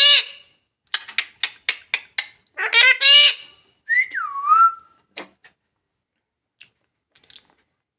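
A parrot making a quick run of short clicking squawks, then a high-pitched call, then a whistle that slides down in pitch, with faint ticks near the end.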